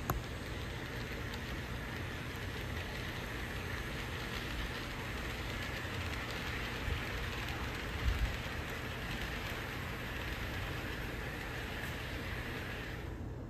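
HO scale model freight train rolling along the track: a steady hiss of the cars' wheels on the rails, with a couple of light knocks partway through. It stops suddenly near the end.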